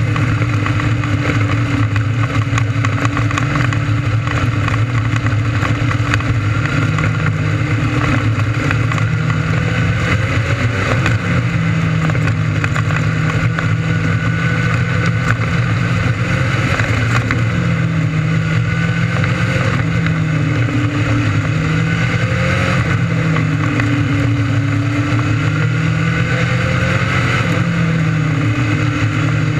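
600cc restricted micro sprint engine running hard in a race, loud and continuous, its pitch rising and falling every few seconds as the car goes through the corners and straights.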